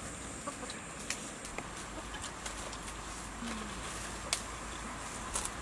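A chicken gives one short, low cluck about three and a half seconds in, over a steady outdoor hiss with scattered light clicks and rustles.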